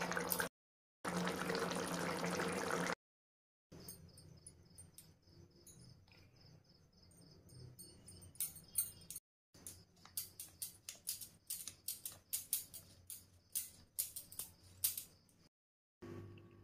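A loud, steady hiss for about two seconds near the start. Then, after a cut, a run of irregular sharp clicks and taps from a metal spoon working in the curry in an iron kadai.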